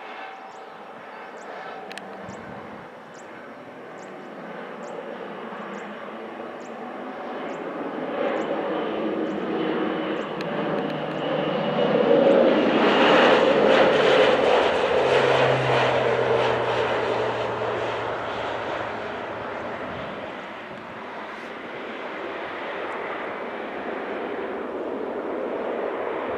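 Air Tractor AT-602 crop-spraying plane's Pratt & Whitney PT6A-60AG turboprop making a low, fast pass. The sound grows louder to a peak about halfway through, its tone falling in pitch as the plane goes by, then fades before building again near the end.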